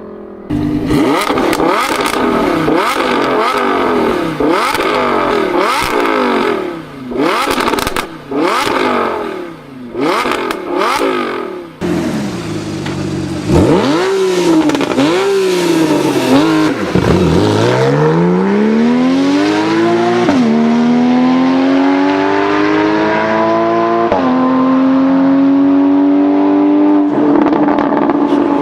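A performance car's engine revved in repeated quick blips, its exhaust crackling and popping as the revs fall each time. About halfway through it accelerates hard, the engine note climbing through two upshifts.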